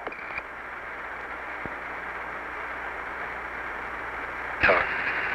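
Steady radio static hiss on the Apollo 11 air-to-ground channel during a few seconds of dead air. It opens with a short high beep, the Quindar tone that ends Houston's transmission. Near the end a crewman's faint reply breaks in over the radio.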